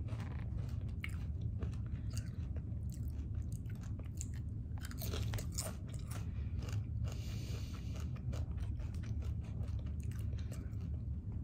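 Chewing close to the microphone: irregular crunching and clicking over a steady low hum.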